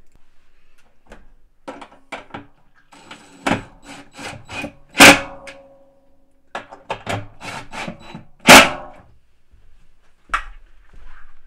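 Small metal parts clinking and knocking inside a stainless steel washing-machine drum as nuts and washers are fitted by hand. There are two loud metallic clanks, one about halfway through and one later, and the first rings briefly.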